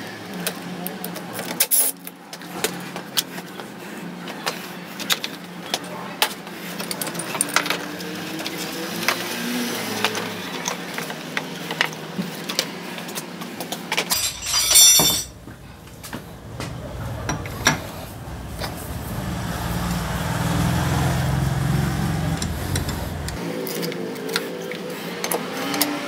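Workshop clatter of tools and metal parts: repeated clicks and knocks as fasteners and components are worked loose from a Honda Silver Wing 600 scooter's engine bay, with a brief louder burst about halfway through.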